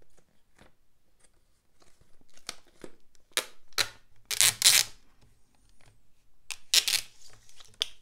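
Clear packing tape pulled off its roll in a series of short, loud rasping strips, the longest and loudest about halfway through, with another strong pull near the end.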